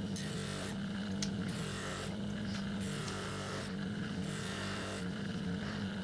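An electric workshop power tool runs steadily with a low hum. A hiss rises and falls roughly every second and a half, as the work is pressed against it and drawn back.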